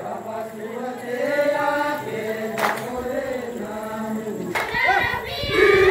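A group of voices singing an Adivasi garba song together, chanting in long held lines, with two sharp hits partway through. The voices grow louder near the end.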